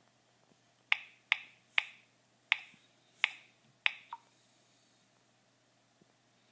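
Key clicks from a Bada touchscreen phone's on-screen keyboard as a word is typed and Search is tapped: six sharp clicks at uneven spacing over about three seconds, followed by a fainter one.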